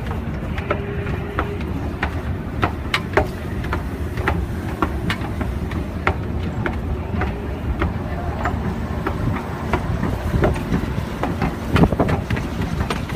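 A moving escalator's steady low rumble with busy station surroundings, dotted with many short sharp clicks and knocks.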